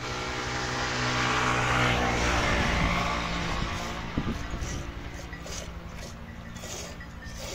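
A motor vehicle's engine passing by, swelling to its loudest about two seconds in and then fading away.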